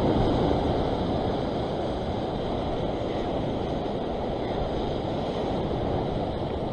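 Ocean waves surging and washing over a rock ledge, a steady rush of surf that swells slightly at the start, with some wind on the microphone.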